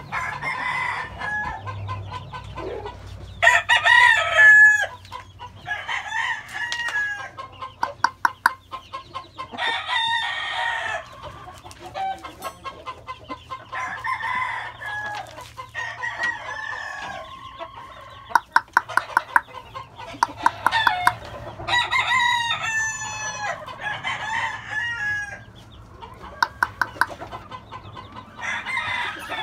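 Gamecock roosters crowing again and again, several birds overlapping, with quick runs of clucks between the crows.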